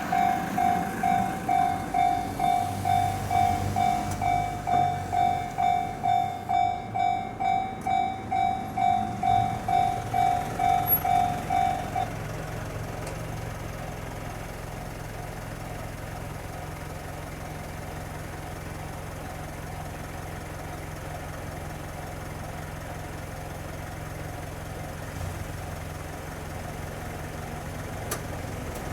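Japanese railway level-crossing warning bell ringing, a loud electronic ding about twice a second, then cutting off about twelve seconds in as the crossing clears. After it a steady low hum continues.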